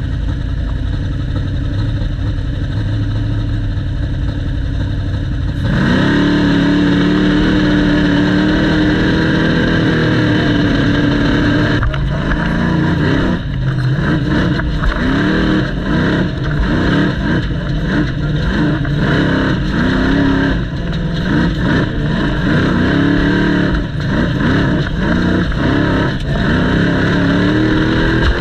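Big-block V8 engine of an off-road race car heard from inside its cockpit. It runs steadily at first, then about six seconds in jumps suddenly to full throttle and holds. From about twelve seconds on the revs rise and fall again and again.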